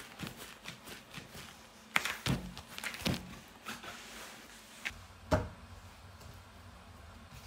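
Dough being handled on a plastic-covered work table: soft thumps and slaps as pieces are set down, pressed and rolled. A few sharper knocks come between two and three seconds in, and one more about five seconds in.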